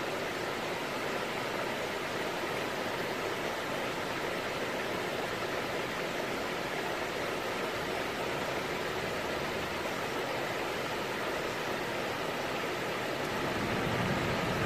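River water running over a shallow rocky riffle: a steady, even rush. It gets a little louder and fuller in the low end near the end.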